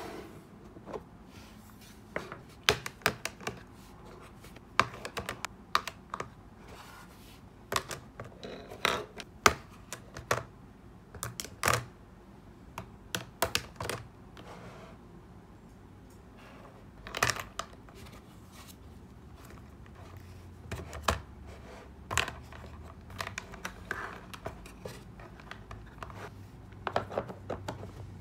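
Plastic highlighters and other stationery clicking and clacking against each other and against a small translucent plastic storage box as they are packed in, in irregular clusters of sharp taps. A faint low rumble comes in about two-thirds through.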